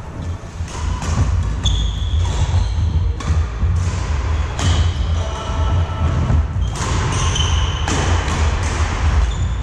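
Badminton rally: sharp racket strikes on the shuttlecock every second or so, with short sneaker squeaks on the wooden court floor between them, over a steady low hum.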